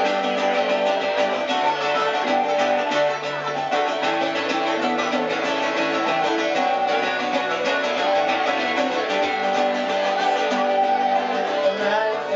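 Live acoustic band playing an instrumental break in a folk song, with strummed acoustic guitar under held melody notes.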